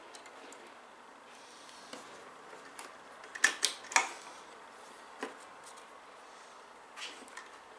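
A few sharp clicks from computer parts being handled and fitted onto a motherboard. The two loudest come close together about three and a half seconds in, with fainter ones before and after.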